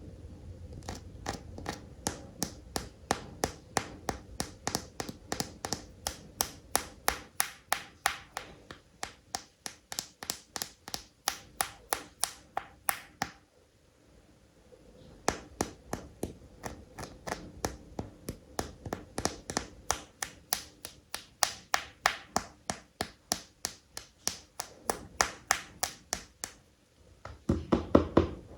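Steady tapping on plastic toy animals, about three crisp taps a second in two long runs separated by a short pause, ending with a quick cluster of duller knocks.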